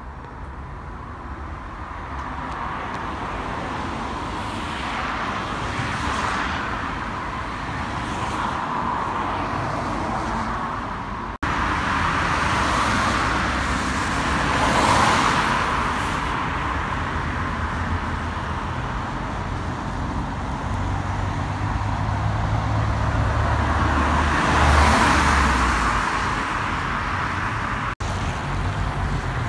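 Road traffic with cars passing by, a steady tyre and engine noise that swells with each vehicle, the loudest passes about halfway through and again near the end. The sound breaks off sharply twice, at edits in the recording.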